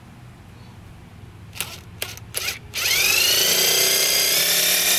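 Cordless drill with a hole saw boring into a plastic speaker enclosure: a few short trigger blips, then about three seconds in the motor spins up with a rising whine and runs steadily.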